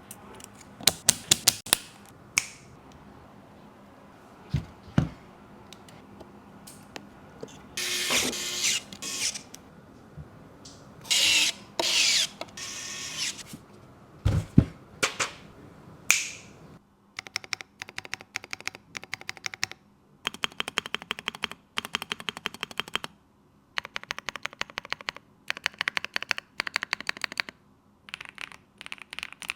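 Unpacking and handling noises with scattered clicks and rustling. About halfway through, rapid typing begins on a Matrix Meta 75 custom mechanical keyboard: the keys clack in quick runs with short pauses between them.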